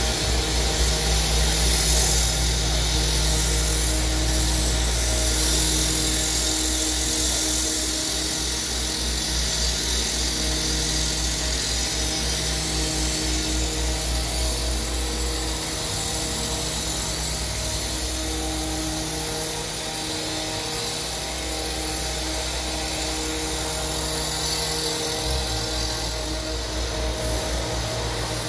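Steady mechanical hum made of several even tones over a low rumble, with a broad hiss on top; the rumble weakens about halfway through and comes back.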